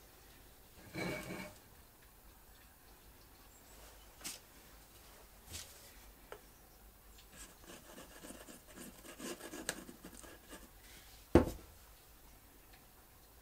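Glue being spread by finger along a small pine block: light rubbing and scraping for a few seconds, after a scrape about a second in and a few light clicks. One sharp knock near the end is the loudest sound.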